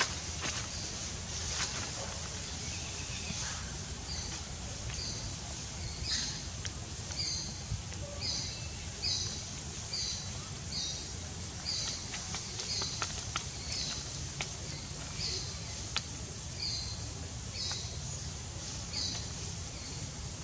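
Outdoor ambience with a bird giving a short high chirp over and over, about once or twice a second, starting a few seconds in, over a steady high hiss.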